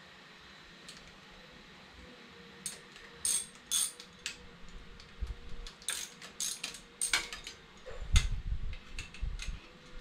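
Irregular sharp metallic clicks and clinks of hand tools working on a bicycle's cotter-pinned crank, starting a couple of seconds in, with a dull knock about eight seconds in.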